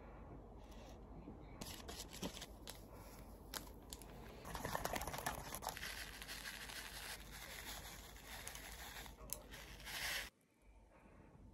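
Food packaging being crinkled and torn open, a string of small rustles and crackles that cuts off suddenly near the end.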